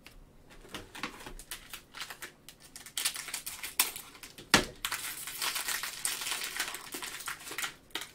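Plastic wrapper of a Panini Mosaic cello-wrapped trading card pack crinkling as it is handled and opened. Scattered crackles give way to dense crinkling about three seconds in, with one sharp snap midway.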